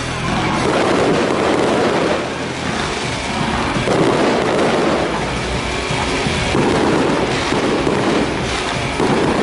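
Fireworks display: a continuous rumble of bursting shells and crackle, with a fresh loud volley about every three seconds.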